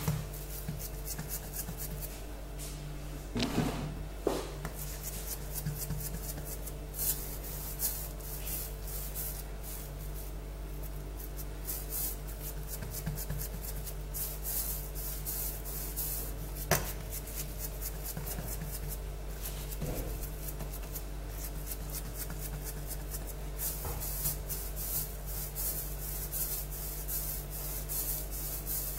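Hands rolling and pressing a log of semolina dough on a granite countertop: soft, irregular rubbing strokes with a few light knocks, the sharpest about 17 seconds in, over a steady low hum.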